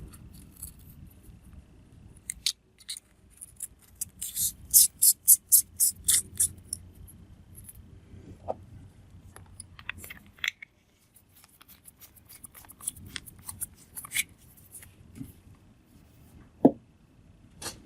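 Small flashlight parts being handled and screwed back together: scattered sharp clicks and light scraping, with a quick run of clicks about four to six seconds in.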